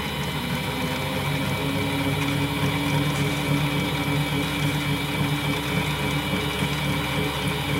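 Mini metal lathe running steadily under power, its motor and gear train giving a steady whine, while a knurling tool is worked back and forth across a brass bushing.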